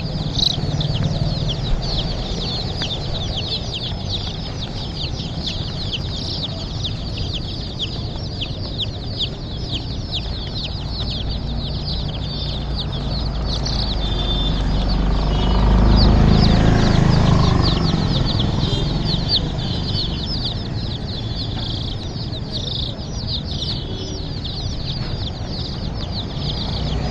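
A crowd of baby chicks peeping nonstop, many short high cheeps overlapping in a dense chorus. A low rumble swells up about halfway through and fades again.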